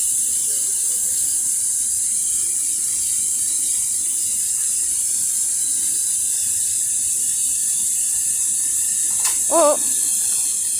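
Steady high hiss of compressed air from the couplers of two Class 385 electric multiple units during a slow uncoupling.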